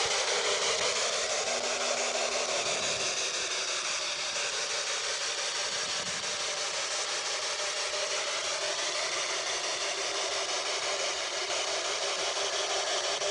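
Steady hiss with faint tones running through it that slowly waver up and down in pitch, which the uploader presents as unexplained humming at the grave.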